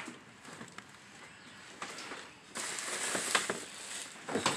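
Rustling and light knocking as items are handled in a plastic storage tote: a few faint clicks, then a louder rustle starting about halfway through.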